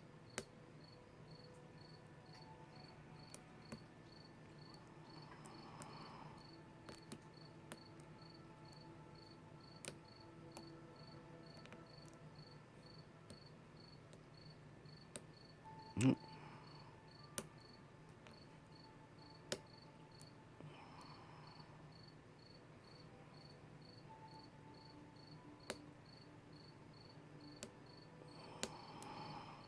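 Faint scattered clicks and taps of a lock pick and tension wrench working the pins of a Kwikset SmartKey padlock, with one louder knock about sixteen seconds in. Under it a cricket chirps steadily, a high short chirp about twice a second.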